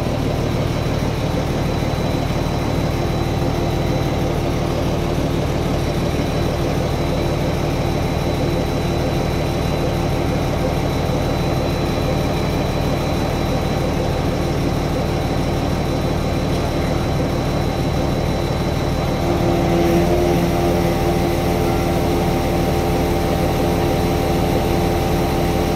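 A large engine running steadily throughout, its note growing slightly stronger and louder about twenty seconds in.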